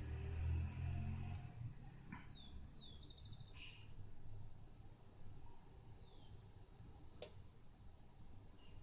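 Faint bird chirps, short falling calls, heard several times in the background, with a low hum that stops about two seconds in and one sharp click near the end.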